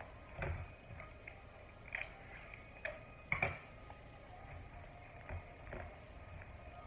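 Paper and Scotch tape being handled as a paper squishy is taped over: irregular crinkles, taps and short tape pulls, the loudest about halfway through.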